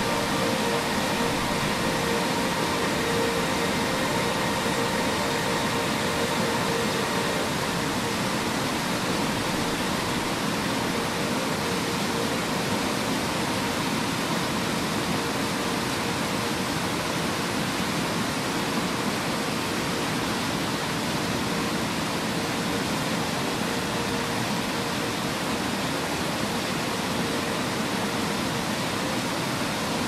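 Waterfall: a steady, even rush of falling water. Faint held tones of background music die away over the first several seconds.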